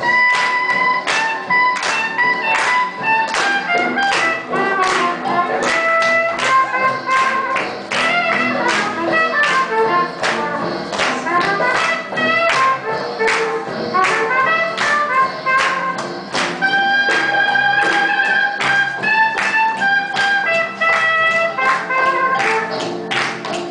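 Swing jazz music playing for Lindy hop dancing, with a steady beat and held melodic notes.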